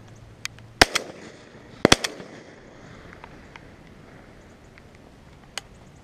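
Two shotgun shots fired at doves, about a second apart, each a sharp crack with a short ringing tail. A much fainter sharp crack follows near the end.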